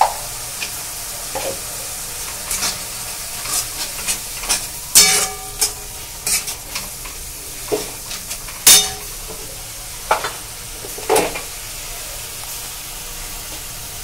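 Steel spatula stirring and scraping a frying onion-tomato spice masala around a metal kadai, over a steady sizzle, with irregular sharper scrapes against the pan, the loudest about five, nine and eleven seconds in. The ground spices are being fried into the masala base.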